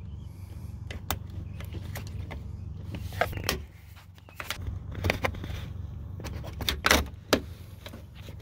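Flathead screwdriver prying a rubber wiring boot out of a Jeep Grand Cherokee WJ's door pillar, then working the door's wiring connector free: irregular scrapes and clicks of metal on rubber, plastic and sheet metal, loudest as a few sharp clicks late on. A steady low hum runs underneath.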